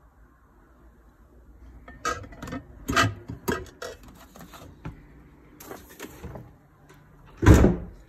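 Things being handled in a refrigerator: a run of sharp clicks and knocks as a plate and containers are moved about on the wire shelves, a few short scrapes, then the loudest sound, a heavy thump near the end as the fridge door is shut.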